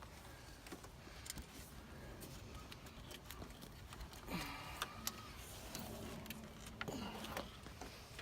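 Faint scattered clicks and light rattling of plastic cable ties being handled and fed through around a car's cooling fan.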